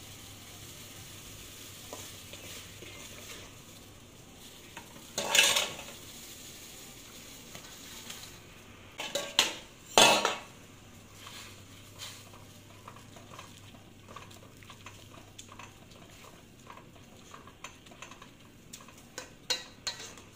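Metal spoon and ladle clinking and scraping against an aluminium cooking pot of water as ingredients are stirred in. There are two loud clatters, about five and ten seconds in, then a run of small quick clinks that grows busier near the end.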